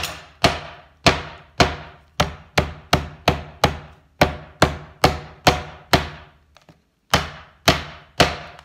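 Metal meat tenderizer mallet pounding a lemongrass stalk on a wooden cutting board to bruise it, in repeated sharp strikes about two to three a second, each ringing briefly. The strikes pause once about two-thirds of the way through, then resume.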